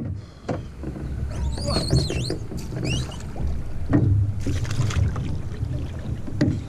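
Water sloshing and splashing around an outrigger canoe's hull as a paddler climbs out over the side into shallow water, with wind rumbling on the microphone. A few short high chirps come between about one and a half and three seconds in.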